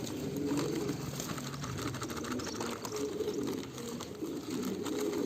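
Domestic pigeons cooing in a loft, a continuous low murmur of overlapping calls.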